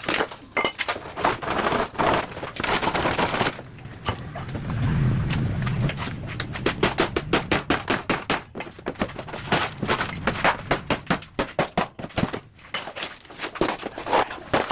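A rapid, irregular run of sharp knocks or strikes, with a stretch of hissing noise about two seconds in and a low rumble around five seconds in.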